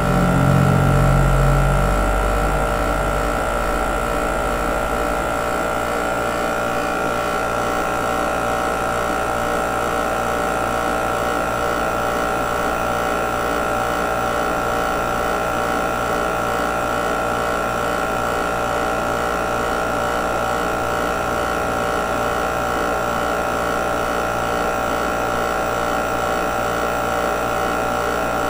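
Mastercool 69110 refrigerant recovery machine running steadily, its compressor drawing refrigerant out of the car's A/C system: a constant mechanical hum with a steady high whine. A louder low rumble rises briefly in the first two seconds.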